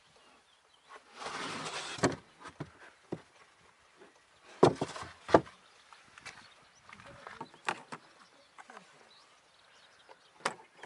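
Boot trim of a Volkswagen Golf hatchback being handled: a rustle of the carpeted floor board or parcel shelf sliding, then two loud sharp knocks of the panels being set down, with small clicks and two more knocks near the end as the tailgate is handled.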